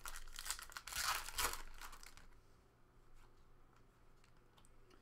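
Trading-card pack wrapper torn open and crinkled, a rustling, crackling noise for about two seconds, loudest around a second in, then only a few faint ticks.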